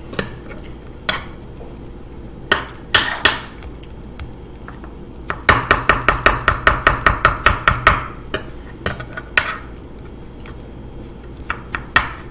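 Metal spoons chopping and scraping ice cream and mix-ins on an end-grain wooden cutting board: a few scattered knocks, then a quick run of about six chops a second for a couple of seconds in the middle.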